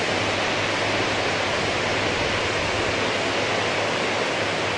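Steady rush of flowing water, even and unbroken, with a faint low hum underneath.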